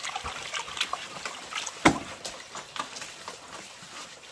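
Containers being washed with water: scattered knocks and clinks with some splashing, and one sharp knock about two seconds in.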